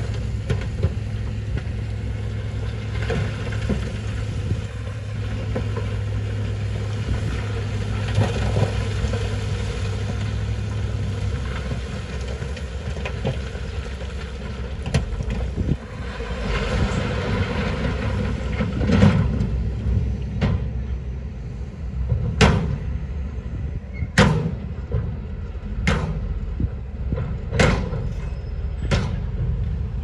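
Dump truck's diesel engine running steadily, then a rumbling swell as the load of stones slides out of the raised tipper bed. This is followed by a series of sharp knocks about every one to two seconds.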